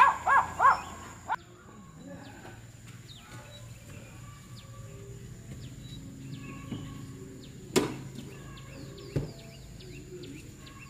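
A dog barks a few times right at the start. After that, small birds chirp on and off over a faint steady high tone, with a sharp click or knock about eight seconds in and another a second later.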